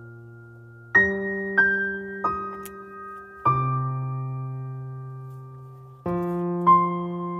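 Slow background piano music: single notes and chords struck a few seconds apart, each left to ring and fade.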